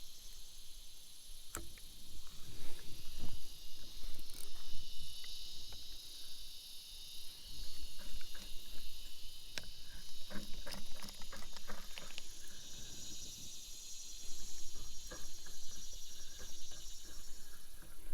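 A steady, high-pitched chorus of insects buzzing, with scattered clicks and knocks, several in quick succession about ten seconds in.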